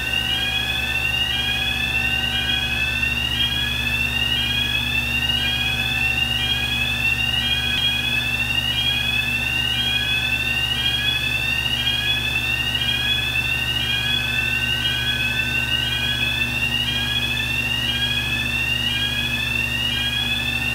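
Door-motion warning alarm on an industrial steam autoclave, sounding a repeating rising whoop about once a second while the automatic door swings open, over a steady low hum.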